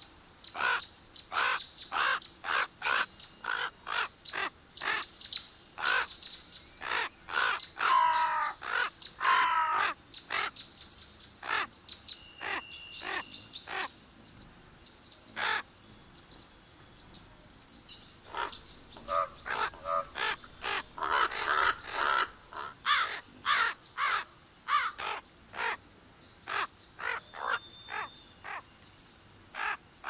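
Crows cawing: a long series of short, harsh caws, about two a second, with bursts of denser overlapping calls about a third of the way in and again about two-thirds in.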